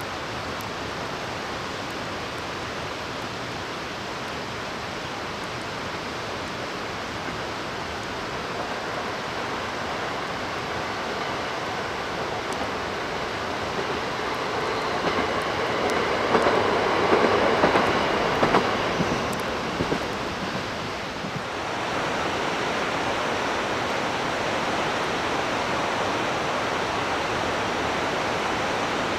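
A diesel train passes: its rumble builds, peaks with some high metallic ringing from the wheels about two thirds of the way in, then falls away, all over a steady rushing noise.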